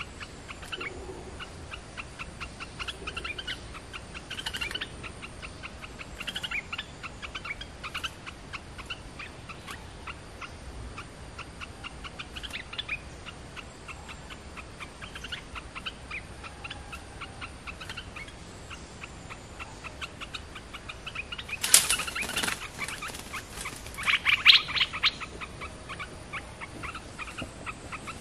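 Olive-winged bulbuls calling back and forth in short phrases every second or two over a dense background of fast ticking. About three-quarters of the way through come two loud bursts of wing-flapping and rattling at the trap, a couple of seconds apart.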